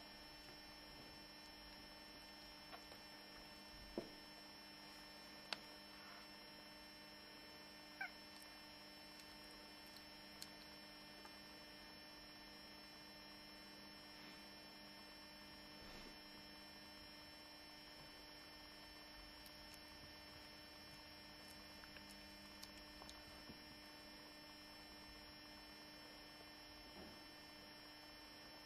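Near silence under a steady electrical mains hum, with a few faint brief clicks and, about eight seconds in, one short falling squeak.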